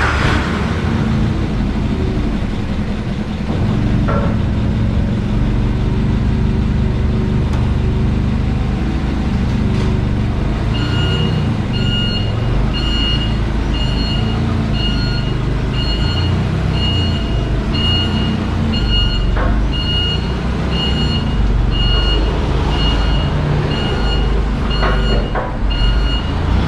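Heavy vehicle engine running with a low rumble. About ten seconds in, a reversing alarm starts beeping steadily, about one and a half beeps a second, as the vehicle backs up.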